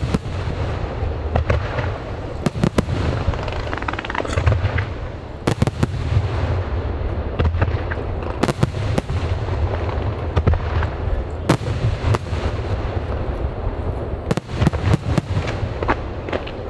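Aerial fireworks display: sharp bangs of shells bursting, often several in quick succession, over a continuous low rumble and crackle.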